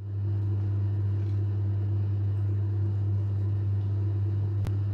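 Steady low hum from some machine or electrical source, even and unchanging, with a single sharp click near the end.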